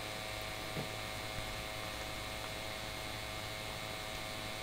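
Steady background hum with a faint click about a second in.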